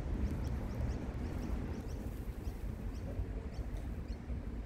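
Outdoor park ambience: small birds chirping again and again in short high calls over a steady low rumble.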